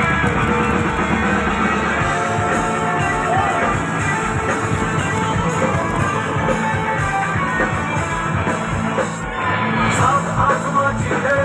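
Music with a steady beat, dipping briefly about nine seconds in.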